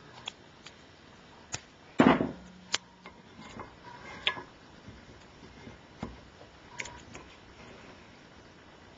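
Scattered clicks and knocks of small parts or tools being handled on a workbench, with one louder clunk about two seconds in followed by a brief low hum.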